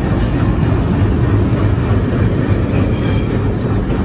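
Indian Railways diesel locomotive running close by: a steady low engine rumble mixed with the noise of its wheels on the rails.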